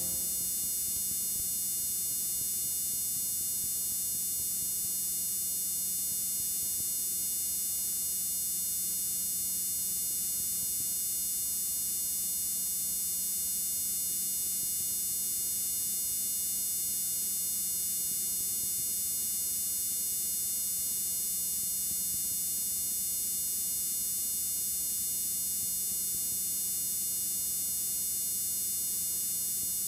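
Steady electrical hum with faint high-pitched whine and hiss, and nothing else: the blank, signal-less gap in an old taped television recording.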